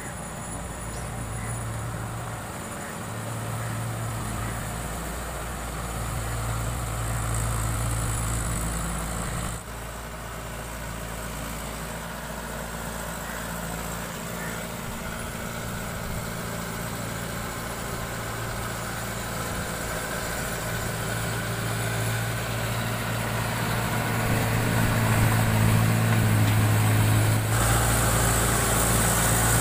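Mahindra Yuvo 575 DI tractor's four-cylinder diesel engine running steadily under load as the tractor works a flooded paddy field, growing louder in the last few seconds.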